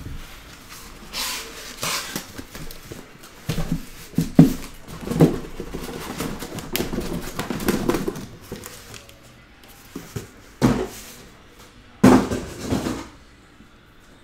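Cardboard shipping case being opened and shrink-wrapped hobby boxes lifted out and set down on a table: rustling and scraping of cardboard and plastic wrap with several dull knocks, the sharpest about four and a half, ten and a half and twelve seconds in.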